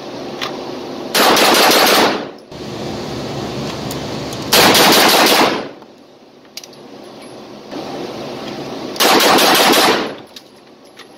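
9mm pistol fired in quick strings in an indoor range: three loud spells of rapid shots, each about a second long with echo, a few seconds apart, with a steady noise between them.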